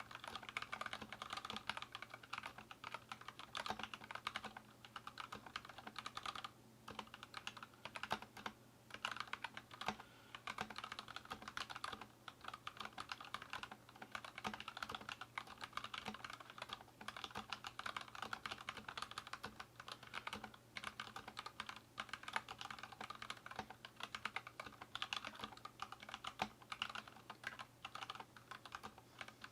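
Continuous fast typing on an Anne Pro 2 mechanical keyboard with stock linear Gateron Red switches, a rapid stream of key clacks with a few brief pauses.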